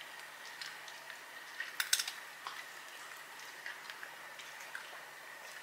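Faint scattered clicks and ticks of a cat eating dry treats off a laminate floor, with a short cluster of sharper clicks about two seconds in.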